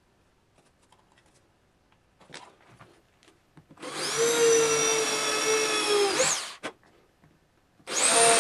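Corded electric drill boring into a wooden board: one steady whining run of about three seconds starting about four seconds in, then a second run starting near the end. Before that, only a few faint handling clicks.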